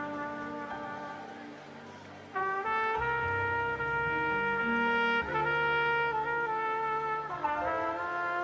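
A trumpet plays long, slow held notes over a keyboard and bass accompaniment. It softens for the first couple of seconds, then swells back in with a strong sustained note about two and a half seconds in, as the bass enters underneath.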